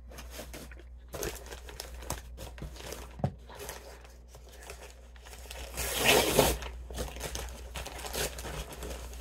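Brown paper shipping bag rustling and crinkling as it is pulled open by hand: a continuous run of crackles, with the loudest burst a little past halfway.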